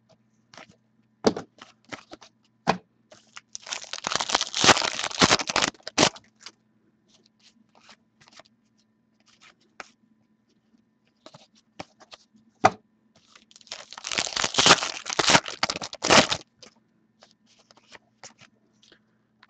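Foil wrappers of hockey card packs being torn and crinkled open, in two spells of a couple of seconds each about ten seconds apart, with light clicks and slides of cards being handled in between.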